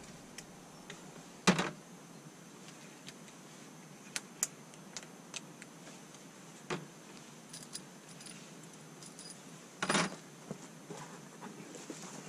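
Hand tools being handled, making scattered light metal clinks. Sharper knocks come about a second and a half in, near seven seconds and about ten seconds in.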